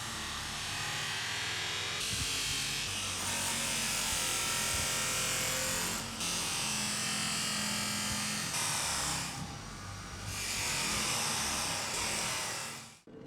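A small handheld power tool running, a steady high-pitched whirring and grinding that breaks off and restarts several times.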